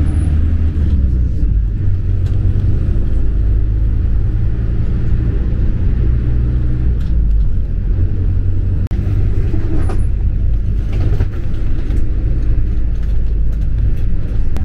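Shuttle bus engine and road noise heard from inside the cabin while the bus drives along: a loud, steady low rumble.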